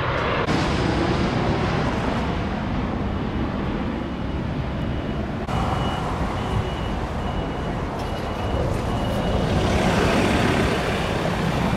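Car road and traffic noise while driving, a steady rumble of tyres and engines. A series of short, high electronic beeps repeats through the middle.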